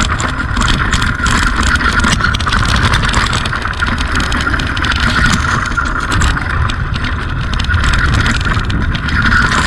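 Mountain bike rolling down a rocky dirt trail, heard from a camera on the bike: a continuous low rumble from the tyres over loose stones and dirt, with frequent rattles and knocks from the bike and wind noise on the microphone.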